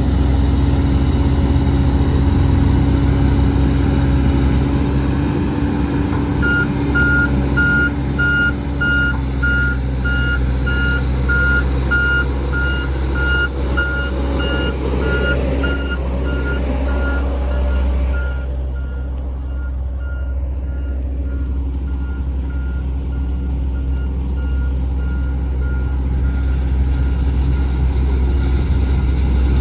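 Heavy diesel construction machinery running steadily with a low drone, and a few seconds in its backup alarm starts beeping about twice a second, growing fainter in the second half before stopping.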